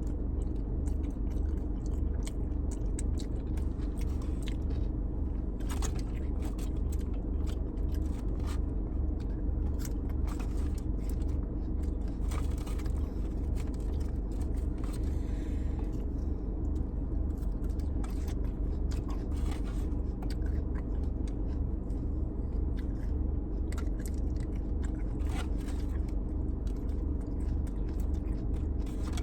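Someone eating teriyaki chicken: scattered scrapes, clicks, chewing and biting sounds over a steady low rumble.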